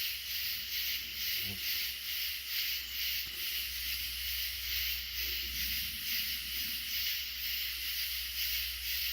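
Large chorus of tree frogs calling at once: a dense, high-pitched pulsing sound that swells about three times a second.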